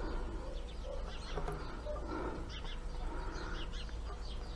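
Birds chirping in many short, high calls, with softer lower calls in between.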